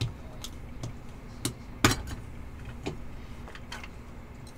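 Clear hard plastic trading-card case clicking and tapping as it is handled and opened, about six sharp clicks spread out, the loudest about two seconds in.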